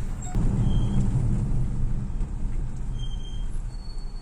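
Steady low road and engine rumble inside a Chery Tiggo 7 as it brakes and slows. A few brief, faint high-pitched squeals from the brake pads come in the second half, the last one near the end.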